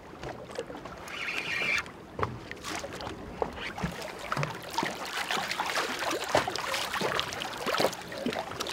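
A hooked zander splashing and thrashing at the water's surface beside the boat as it is reeled in and lifted out. There is a short reel whir about a second in, and wind-driven waves are lapping.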